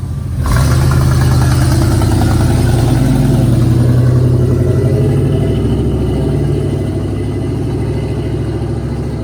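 The 5.7-litre 350 small-block V8 of a 1990 Chevy Silverado K2500 running loud through its exhaust. It jumps up in level about half a second in, holds steady, and eases off a little toward the end.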